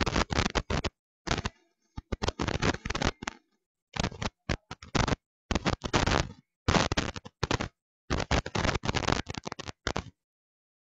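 An arena audience clapping, heard as choppy bursts of sharp claps with dead gaps between them where the sound drops out, and cutting off about ten seconds in.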